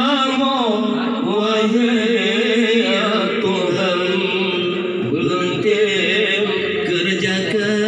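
Men singing an unaccompanied, ornamented Acehnese chant into microphones: a lead singer's voice slides and wavers in pitch while other voices hold a low note beneath it.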